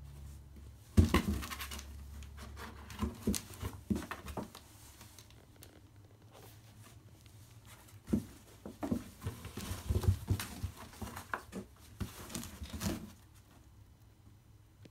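Kittens playing on and around a cardboard box: paws scrabbling and bumping against the cardboard, with a sharp knock about a second in and a busy stretch of scuffling from about eight to thirteen seconds.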